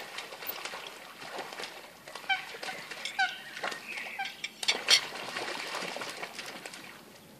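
Eurasian coots fighting on the water: splashing from beating wings and feet, loudest about five seconds in, with several short, sharp calls in the middle.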